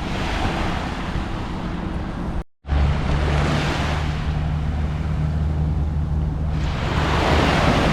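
Ocean surf washing up the beach with a low wind rumble on the microphone. The sound cuts out for a moment about two and a half seconds in, then the surf swells twice.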